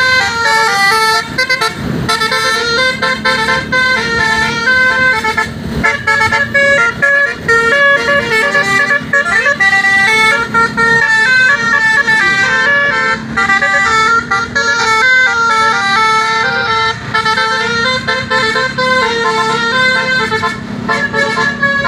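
Basuri 'telolet' multi-tone bus horn playing a tune, several horn notes sounding together and stepping up and down in quick runs without a break.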